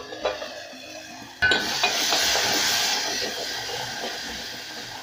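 Onion and tomato sauce sizzling in oil in an aluminium pot while a spatula stirs it. The sizzle starts suddenly about a second and a half in, loudest at first, then slowly fades.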